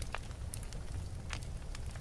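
Wood fire burning in a fireplace: a steady low rumble with scattered sharp crackles and pops, a few each second.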